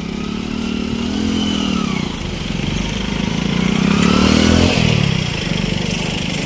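Motorcycle engine running as it rides past close by on a dirt road, its pitch rising and falling twice with the throttle and loudest about four and a half seconds in.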